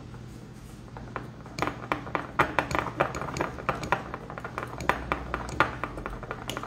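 A metal utensil stirring a thick condensed-milk filling in a glass bowl, clinking and tapping against the glass in quick, irregular strokes from about a second and a half in.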